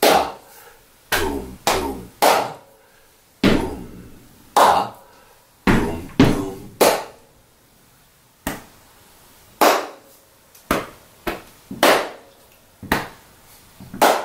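Body percussion: hand claps and slaps on the body beating out a repeating rhythmic ostinato (toum, ta, toum, toum, ta). The strikes in the first half have a deeper thud, and those after about 8 s are sharper and thinner.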